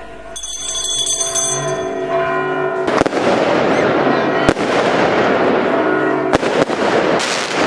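Firecrackers going off in a dense crackling barrage with several sharp bangs, starting about three seconds in. Church bells ring before and under it.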